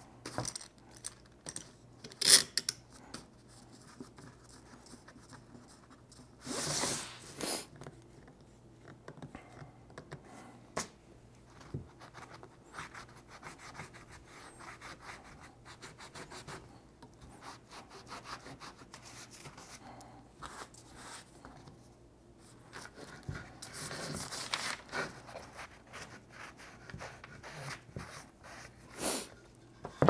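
Handling sounds of clamping a glued-up cedar board: clamps set with a sharp knock and clicks, and a cloth rag rubbing across the wood to wipe off squeeze-out glue.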